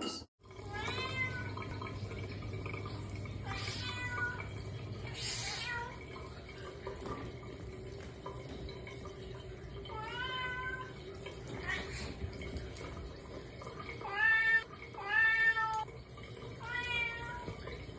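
Tabby cat meowing repeatedly, about seven short meows spaced irregularly, the loudest two coming close together near the end.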